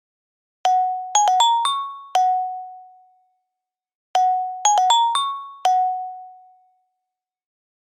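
A phone ringtone: a short chime-like melody of about six notes, opening on a held note, skipping quickly upward and falling back to that note, which fades out. The phrase plays twice, with a pause between the repeats.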